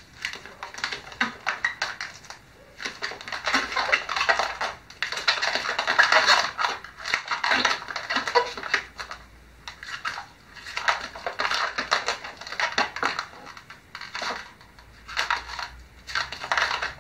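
Long latex modelling balloon squeaking and rubbing under the hands as it is twisted off into a row of small bubbles. It comes in several spells with short pauses between.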